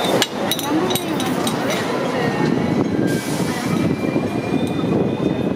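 Hong Kong double-decker electric tram running on street track: a steady rumble and rattle of steel wheels on rail, with a quick run of clicks near the start and a faint high wheel squeal over the second half.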